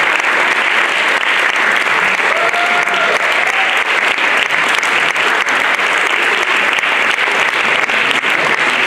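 Audience applauding steadily, with a short cheer from a single voice about two and a half seconds in.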